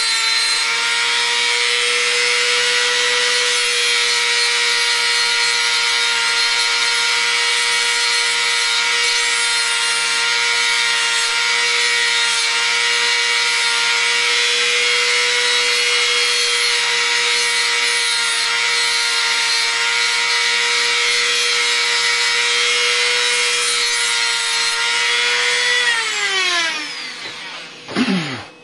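Variable-speed Dremel rotary tool with a cutoff disc grinding a carbon steel lock-pick blank: a steady high motor whine under a gritty grinding hiss. Near the end the tool is switched off and its whine falls in pitch as it spins down.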